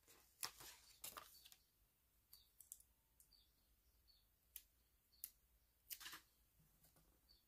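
Faint, irregular sharp clicks with light rustles: metal tweezers and a paper sticker sheet being handled while a sticker is picked off.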